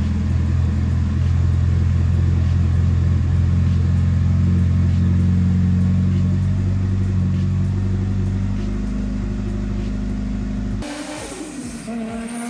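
Mitsubishi Lancer Evolution V RS's turbocharged 4G63 inline-four running at a steady speed, in its first run after about ten years sitting. About eight and a half seconds in, its deepest tone drops away, and near the end the sound changes abruptly and gets quieter.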